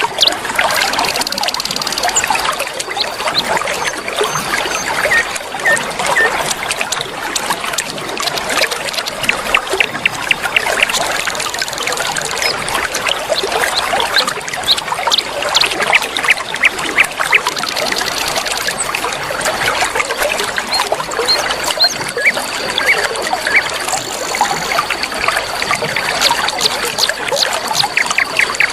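River water flowing, a steady babbling trickle full of small splashes and gurgles. A thin, high, steady tone comes and goes over it several times, longest in the second half.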